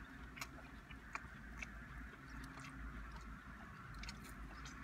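Faint chewing and biting of fast food close to the microphone, with scattered small crunches and mouth clicks.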